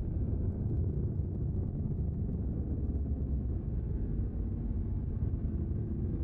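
Steady low rumbling drone with a few faint held low tones, its energy deep in the bass.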